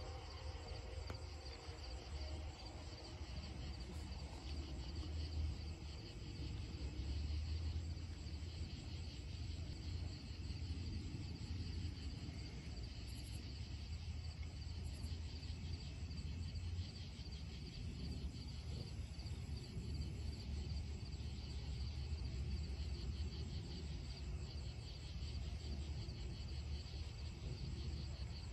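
Night chorus of crickets and other insects, a steady high chirping, over a steady low rumble.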